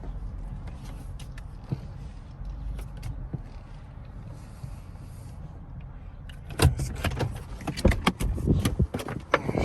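Steady low rumble, then from about six and a half seconds a run of loud, irregular knocks and rattles.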